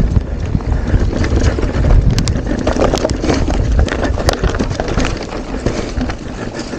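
Mountain bike riding down a singletrack: wind buffeting the microphone with a heavy rumble, over the clatter of the tyres and bike rattling and knocking on the uneven trail.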